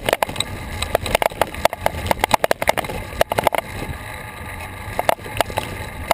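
Wind and road noise on a bicycle-mounted action camera while riding, a steady low rumble with many sharp clicks and rattles from road bumps jolting the mount.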